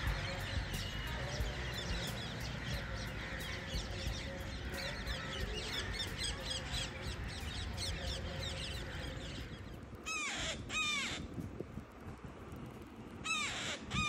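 A flock of crows cawing, many calls overlapping at first. About ten seconds in the chorus thins to a few louder, separate caws that come in pairs.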